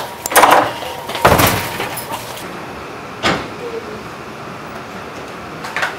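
A door being opened by its handle, with two short rattling bursts in the first second and a half and a sharp click a little over three seconds in.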